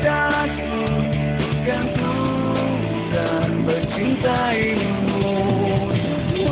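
Pop-rock ballad music: a band with guitar plays a melodic lead line that slides and bends between notes over a steady accompaniment.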